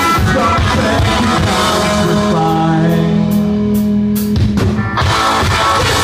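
Live indie rock band playing, with electric guitars, bass, drums and singing. About two seconds in, the band holds a sustained chord under a run of evenly spaced drum or cymbal hits, then breaks off briefly just before five seconds in and comes back in at full.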